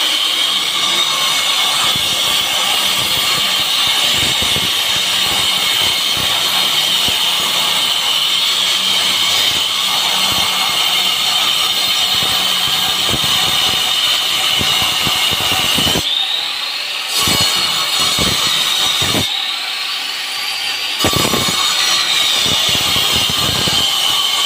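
Electric angle grinder cutting a groove into a brick wall for a water pipe: a steady high motor whine over the rough grating of the disc in the brick. Twice, about two-thirds of the way in and again shortly after, the disc comes off the brick, the grating stops and the whine climbs higher before the disc bites again.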